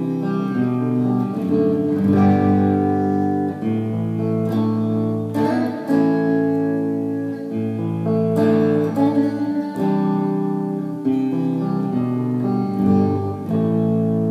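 Electric guitar playing a run of sustained chords that change every second or so.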